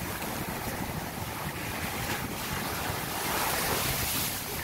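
Small surf breaking and washing up a sandy beach, swelling about three seconds in, with wind rumbling on the microphone.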